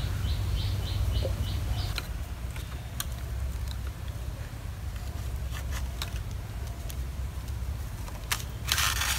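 Split-bamboo strips clicking and rustling as the rim of a woven bamboo basket is bound, with sharp single clicks every second or so and a brief scraping rustle near the end. A small bird chirps about six times in quick succession in the first two seconds, over a steady low rumble.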